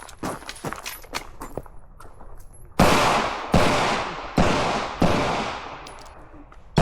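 A shooter's string of gunfire: four loud shots about three quarters of a second apart, then a quieter shot and another right at the end. Each shot rings off with a long echo. Light clicks and knocks come before the first shot.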